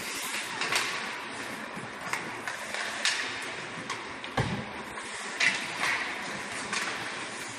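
Ice hockey play: skates scraping the ice under a steady rink hiss, with sharp clacks of sticks on the puck and a heavier thud about four and a half seconds in.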